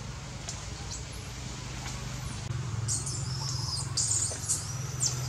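Rapid high-pitched chirps and squeaks, starting about three seconds in, over a steady low hum.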